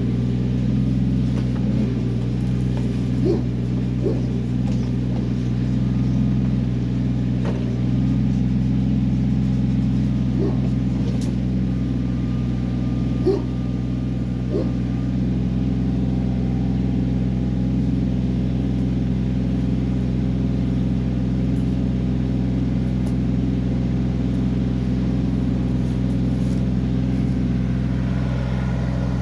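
Kioti CK20 compact tractor's diesel engine running steadily during backhoe work, with a few brief higher-pitched chirps over it.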